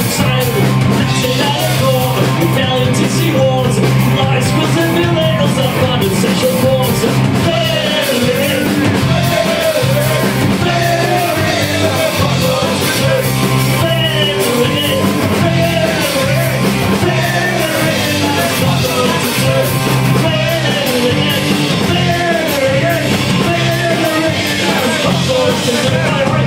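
Live punk rock band playing loudly: a man singing lead over electric guitar, bass and drums with crashing cymbals.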